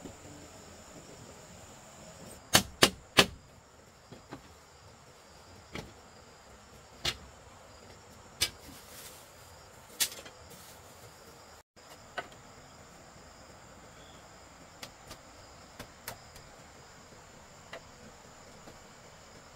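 Sharp knocks of bamboo being worked on during building. Three come in quick succession about two and a half seconds in, then single knocks every second or two, fainter towards the end. Insects chirp steadily in the background.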